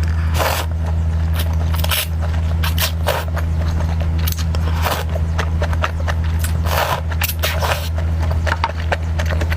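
Close-miked eating sounds: irregular crunching, clicking and smacking of food being chewed. A steady low hum runs underneath.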